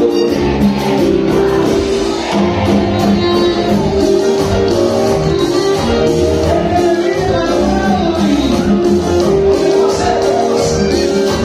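Live Latin band music played loud in a large hall, a male lead singer's voice over accordion, guitar and bass, heard from within the audience.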